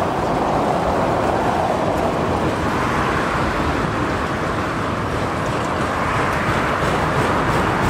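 Freight train of enclosed autorack cars rolling past close by: a steady, loud rolling noise of steel wheels on the rails with a low rumble underneath.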